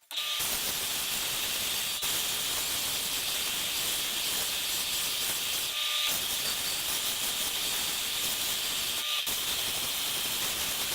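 Handheld power tool sanding wood off the side of a 2x4, a steady hissing grind with a faint whine, stopping for a split second twice.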